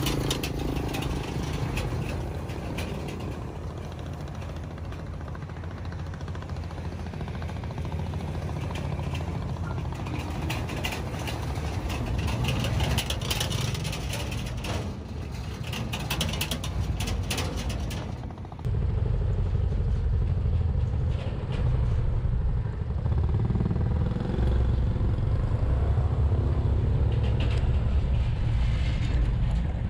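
Motorbikes crossing the steel-plate deck of a suspension bridge: the loose ribbed plates clatter and rattle under the wheels over the low run of the engines. Near the two-thirds mark the sound switches to a louder, steady low rumble.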